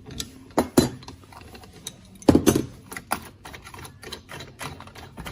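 Irregular clicks and clinks of metal parts being handled as fittings are taken off an angle grinder, with two louder knocks near the start and about two and a half seconds in.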